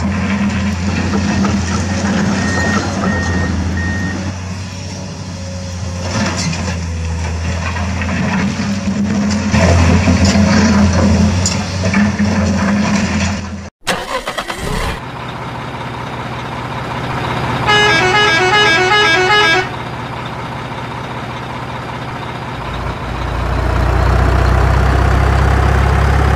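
Truck engine sounds running steadily, cutting out abruptly about 14 s in and starting again. Later, a horn plays a quick run of alternating notes for about two seconds, followed by the engine growing louder.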